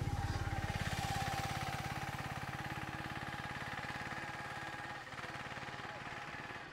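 A vehicle engine idling with a steady, rapid chug.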